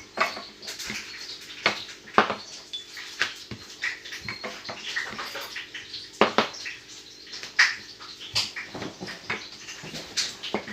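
Irregular clicks, taps and knocks of hands and utensils handling dough and kitchenware, with a few faint high chirps in the background.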